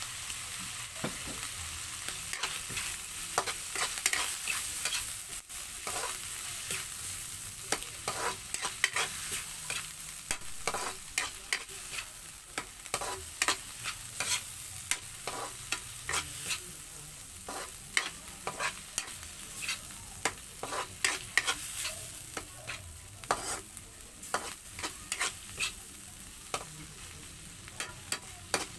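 Hotdog slices and corned beef sizzling in a wok while a metal spatula stirs and scrapes them, with frequent irregular clinks of the spatula against the pan over a steady frying hiss.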